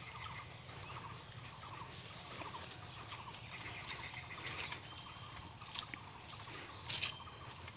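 Faint outdoor ambience in a bamboo grove: small animal calls, rapidly pulsed and repeating over and over, with a few light clicks.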